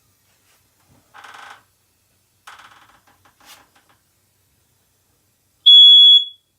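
Smoke detector beginning to sound, one loud, steady high-pitched beep near the end, set off during the soldering work. Before it come a few faint clatters.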